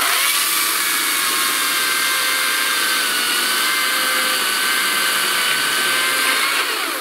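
Greenworks cordless battery chainsaw cutting through a log: a steady electric motor-and-chain whine that winds down in pitch as the trigger is released near the end. The battery, which was in doubt, holds out to finish the cut.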